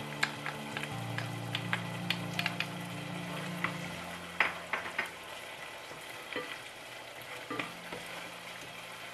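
Chicken and sauce sizzling in a pan while being stirred, with the utensil clicking sharply against the pan about a dozen times, mostly in the first five seconds.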